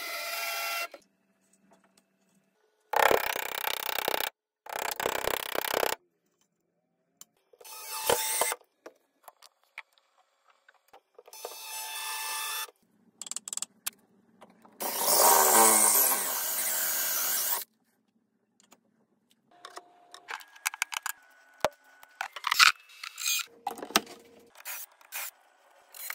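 A string of short, separate workshop tool sounds, each lasting a second or a few seconds, with silences between: power-tool running, rubbing and scraping. One longer, louder burst comes around the middle, and a run of sharp clicks and taps fills the end.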